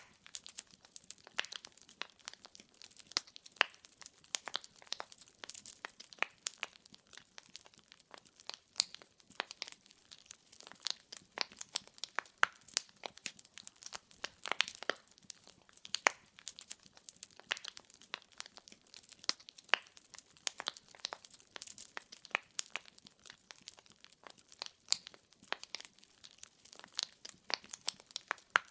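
Wood fire crackling in a fireplace: a dense, irregular run of sharp pops and snaps from burning firewood logs over a faint hiss.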